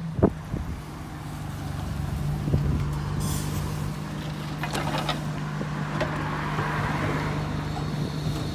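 ADL Enviro 200 single-deck bus pulling in to a stop, its diesel engine running with a steady hum that grows louder as it draws up. There is a sharp knock just after the start, a short air-brake hiss about three seconds in, and a cluster of clicks around five seconds in.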